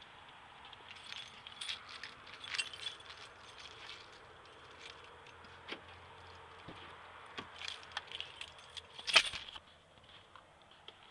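Light jingling and rattling clicks of small hard objects being handled, coming in scattered bursts; the loudest cluster is about nine seconds in.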